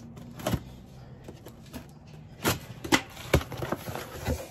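A knife cutting the tape on a cardboard box and the flaps being pulled open, with rustling cardboard and several sharp clicks and knocks, the loudest a little past halfway.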